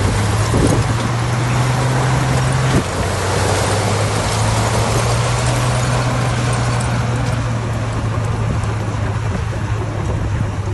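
Diesel engine of heavy earthmoving machinery running steadily at a low hum, with a single knock about three seconds in.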